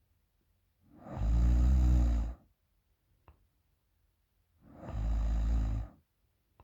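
A woman snoring deeply: two long snores about three and a half seconds apart, each lasting about a second and a half, with a faint click between them.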